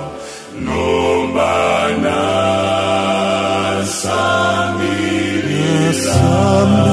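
A choir singing a gospel song in several-part harmony, with a brief break between phrases at the start.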